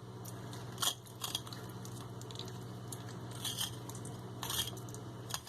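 Knife cutting a fish fillet away along the rib cage: a few short, crunchy, wet scrapes about a second apart, over a steady low hum.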